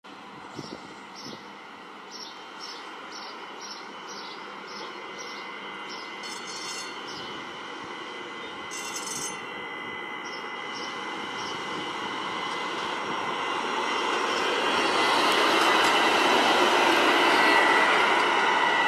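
Light rail train or streetcar approaching and passing, growing steadily louder to a peak near the end, with a thin steady wheel squeal as it comes closest.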